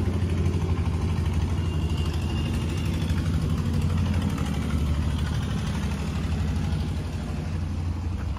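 Diesel tractor engine running at a steady idle, an even low pulsing with no change in speed.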